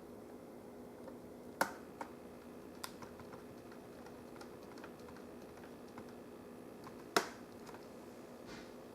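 Scattered light clicks and taps of a small screwdriver and screws being worked into a laptop's screen brackets, with two sharper clicks about a second and a half in and near seven seconds in, over a faint steady hum.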